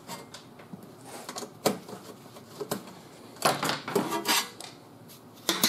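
Light clicks and clatter of a sheet-steel patch panel being worked loose and lifted off a car door bottom, with a louder stretch of sheet metal scraping and rattling about three and a half seconds in, lasting about a second.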